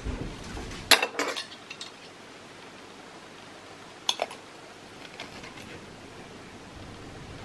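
Knife and fork clinking against a ceramic bowl while cutting food: a quick cluster of clinks about a second in, two more near four seconds, then a few faint ones.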